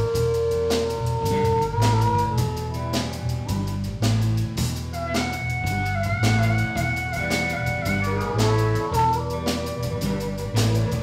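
Live blues band: a harmonica takes the lead with long held notes, a high wavering one in the middle, over drum kit, bass guitar and electric guitar.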